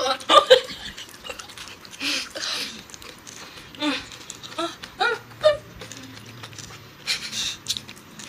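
A woman giggling in short pitched bursts, with breathy, hissing laughs in between.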